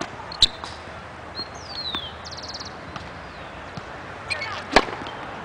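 Tennis serve practice: a sharp smack about half a second in, then a racket hitting a served ball hard near the end, the loudest sound. A bird whistles and trills in between.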